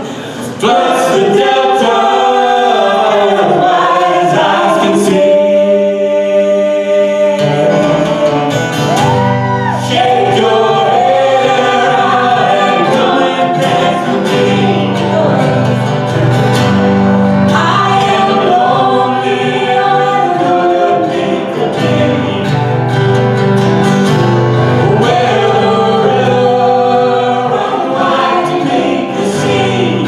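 Live band playing a song: a woman singing lead with harmony voices over acoustic guitars and keyboard. The full band comes in loud about a second in.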